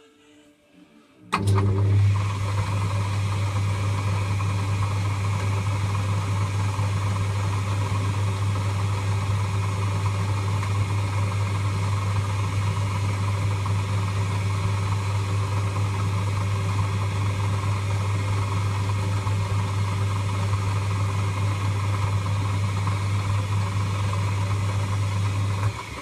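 Lathe motor switched on about a second in, running steadily with a strong low hum, then switched off just before the end.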